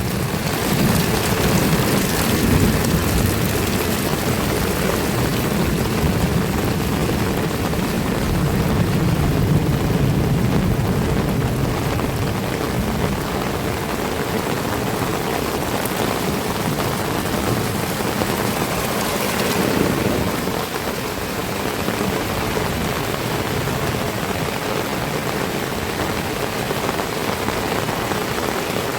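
Heavy tropical rain pouring steadily, with a low rumble of thunder through the first dozen seconds that fades away.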